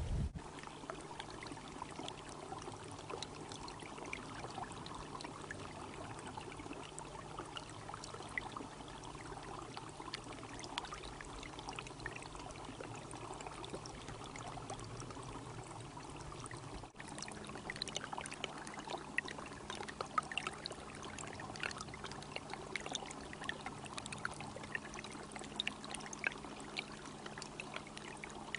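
A small stream trickling and splashing over rocks, with a steady rush and many small sharp splashes. The sound changes abruptly a little past halfway, with livelier splashing afterwards.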